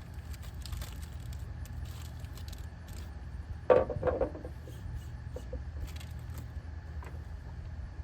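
Small metal parts and tools clinking and rattling as they are handled, with one louder metallic clank about four seconds in, over a steady low hum.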